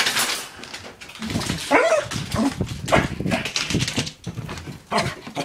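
A pet dog whining and giving short barks several times.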